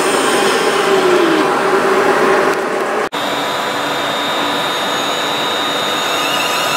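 A West Midlands Railway train running alongside a platform, wheels and engine rumbling with a tone that falls away. It cuts off suddenly to a Class 350 Desiro electric multiple unit standing at a platform, its electrical equipment giving a steady whine of several high tones, with another tone joining near the end.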